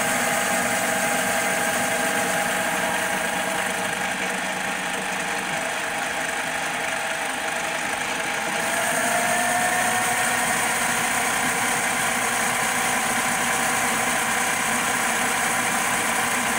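CNC-converted Logan 12-inch lathe running steadily while its tool turns a spinning metal pulley blank, a cut the machinist feels is too big a bite. It runs as a steady machine noise with a few faint whining tones; about halfway through it gets slightly louder and a new whine rises in pitch.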